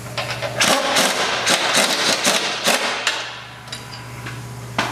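Pneumatic impact wrench hammering in a series of short bursts for about two and a half seconds, breaking loose and backing out the wheel fork pivot bolt, followed by a single sharp click near the end.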